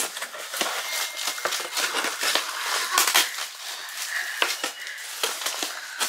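Hands opening a cardboard box and digging through it: the flaps and contents rustle and crinkle irregularly, with many small scrapes and clicks.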